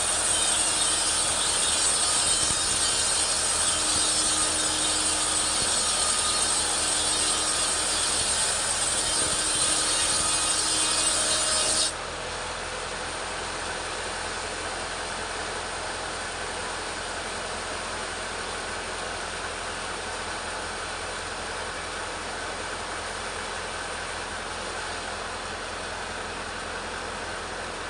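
Petrol chainsaw running hard, ripping lengthwise through a teak log. About twelve seconds in, the sound drops suddenly to a quieter, duller steady running.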